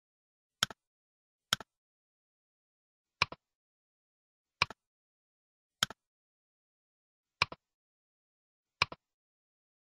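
Computer mouse button clicking seven times at uneven intervals. Each click is a sharp press followed a split second later by a fainter release, with dead silence between the clicks.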